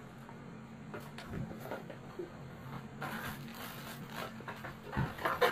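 Soft rustling and a few light clicks of a package being unwrapped by hand.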